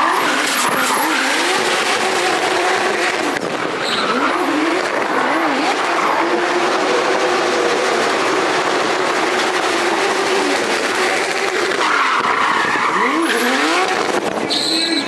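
Drift car's engine revving hard and its rear tyres screeching as it slides sideways, the engine note rising and falling again and again.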